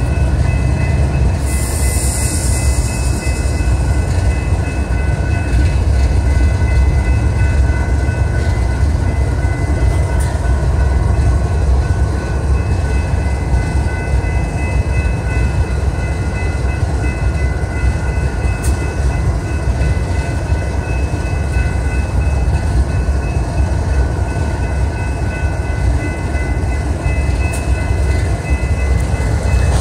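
A BNSF GE ES44C4 diesel-electric locomotive, with its GEVO V12 engine, running at a standstill with a steady low rumble. A short hiss comes about two seconds in, and steady high tones sound over the engine.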